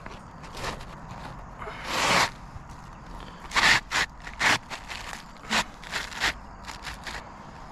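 Short gritty scrapes and rustles on an asphalt shingle roof: a longer scrape about two seconds in, then a run of quick scrapes in the second half, as a shingle is handled and worked into place.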